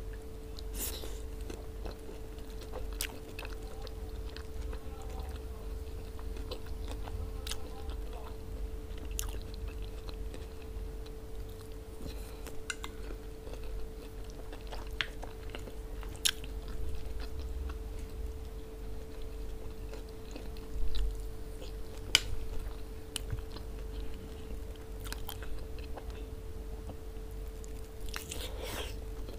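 Close-miked eating: chewing and biting, with scattered sharp wet mouth clicks and occasional crunches, from forkfuls of fresh tomato-and-cucumber salad and a piece of lamb bitten off by hand. A steady faint hum lies underneath.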